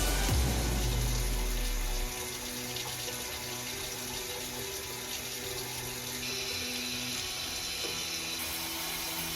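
Steady rushing water with music underneath, and a heavy low rumble during the first two seconds.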